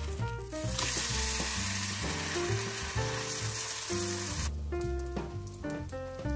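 Zucchini pancake sizzling in oil in a frying pan, a dense hiss that starts about a second in and cuts off suddenly at about four and a half seconds, over background music.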